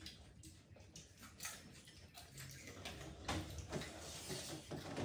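Pani puri and green chillies being eaten: irregular crunches, chewing and small clicks, spaced unevenly through the stretch.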